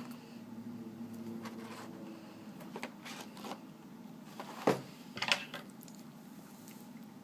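Trading-card box and packaging being handled: a few short crackling rustles and clicks, the loudest about halfway through, over a low steady hum.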